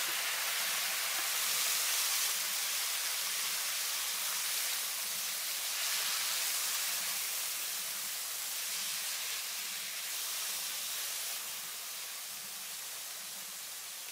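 Freshly washed broad beans and potato cubes sizzling in hot oil in a kadhai, a steady hiss that slowly dies down.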